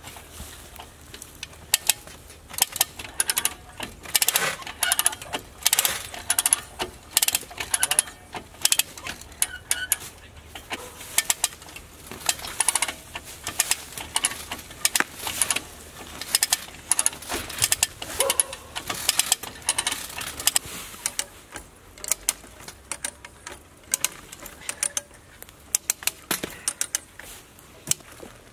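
Come-along hand winch being ratcheted: runs of sharp metallic clicks from the ratchet and pawl as the handle is pumped back and forth, hauling a heavy walnut log.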